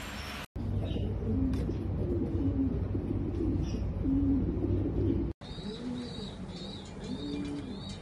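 Domestic homer pigeons cooing, a run of low coos one after another. The sound breaks off abruptly twice, and over the later coos a thin high chirp repeats about twice a second.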